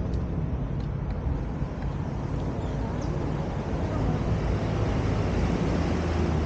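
Steady street noise of road traffic, with wind on the microphone; a little louder from about four seconds in.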